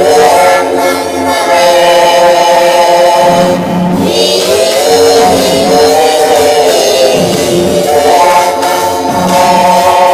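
Loud singing over music, a cartoon song run through a pitch- and tone-altering effects preset, with long held notes.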